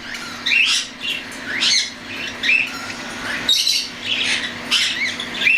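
Young cockatiels calling: repeated short, rising, raspy squawks and chirps, several a second, from chicks close to weaning, over a steady low hum.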